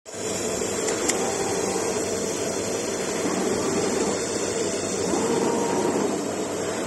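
Steady mechanical whir of a running machine, like a blower or fan, with two light clicks about a second in.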